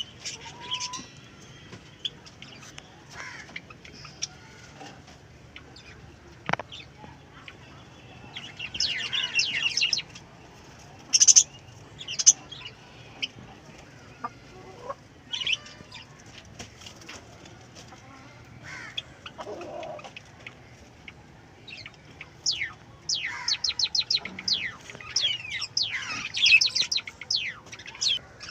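Country chickens (nattu koli) clucking and calling at intervals. Near the end comes a fast run of short clucks.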